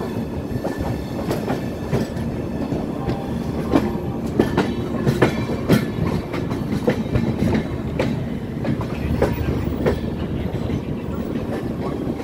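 Indian Railways passenger coach rolling through station trackwork. Its wheels rumble steadily and clack irregularly over rail joints and points, with the loudest clacks about four to six seconds in.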